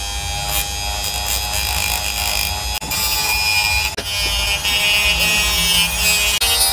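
Ryu RDG 3.2 mini die grinder running at speed setting 3, its small cut-off disc cutting into a printed circuit board: a steady high motor whine with gritty grinding noise where the disc bites, and a couple of brief dips about three and four seconds in.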